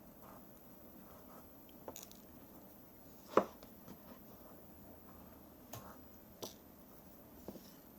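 A quiet room with a few scattered short clicks and taps, the loudest about three and a half seconds in.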